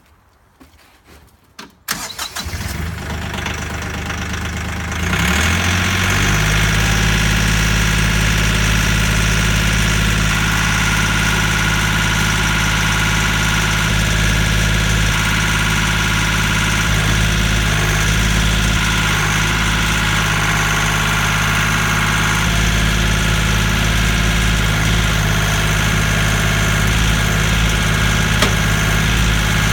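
A Kioti compact tractor's diesel engine starts about two seconds in, is brought up to a higher steady speed a few seconds later, and runs on while the backhoe is worked. A higher whine comes and goes through the middle.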